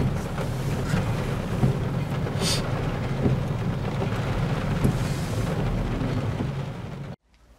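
Heavy rain drumming on a car's roof and windscreen, heard from inside the car, over a steady low rumble with scattered sharp ticks. It cuts off suddenly about seven seconds in.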